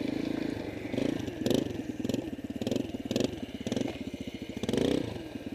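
Dirt bike engine running with a steady pulsing note, blipped up in short bursts about seven times, each rev rising and falling quickly.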